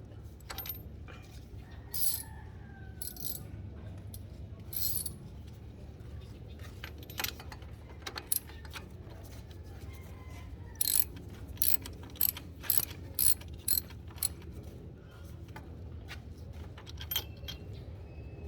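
Socket ratchet clicking in short bursts as it turns the spark plug of a Kawasaki Barako II 175cc motorcycle engine, mixed with the clink of metal tools. Near the end comes a run of about five sharp clicks, roughly half a second apart.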